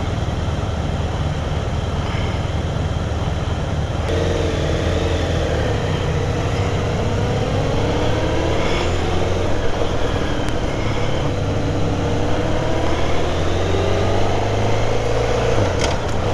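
Motorcycle riding along, its engine running under a steady rush of wind and road noise. From about four seconds in, the engine note rises and falls as the throttle opens and eases.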